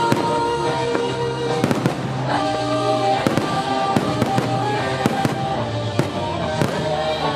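Aerial firework shells bursting in about a dozen sharp, irregularly spaced bangs over music with long held notes.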